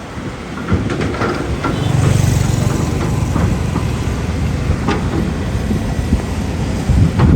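CAT 320C excavator's diesel engine running with a steady low rumble, louder about two seconds in, while sharp knocks and clanks ring out several times.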